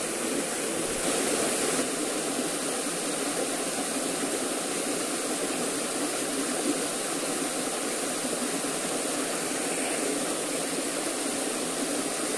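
A small stream cascade pouring over rocks into a pool, a steady rush of splashing water.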